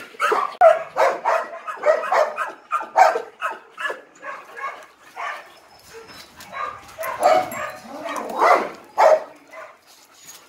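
Two dogs vocalising in rough play: a rapid run of short barks and yips, a few a second, thinning out midway and picking up again near the end.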